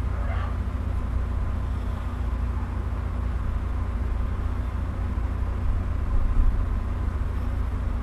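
A steady low hum and rumble with a faint hiss above it, unchanging throughout.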